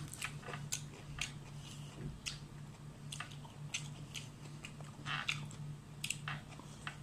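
A person chewing and lip-smacking close to the microphone: an irregular string of short wet clicks and smacks, two or three a second, over a low steady hum.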